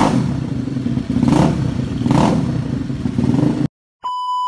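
Yamaha Mio scooter with a built 215cc engine running on the stand and blipped up three times in quick revs, settling back to a lumpy idle between. It cuts off abruptly, and a steady beep tone starts about four seconds in.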